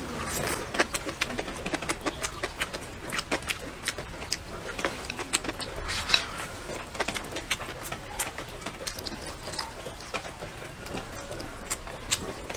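A person chewing a mouthful of rice and stir-fried cured pork with bamboo shoots, close-miked: irregular wet smacks and mouth clicks, several a second.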